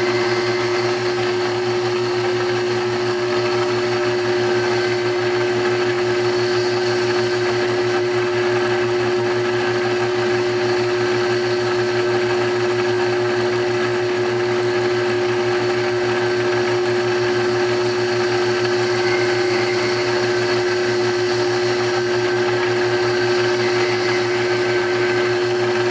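Electric overhead-drive motor running steadily, belt-driving the spinning cutter of a horizontal cutting frame on a rose engine lathe: a constant hum with one steady tone that holds its pitch throughout.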